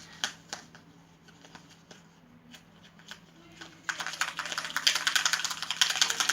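Soap-and-salt slime mixture being stirred: scattered small clicks, then about four seconds in a dense run of rapid clicking and crackling.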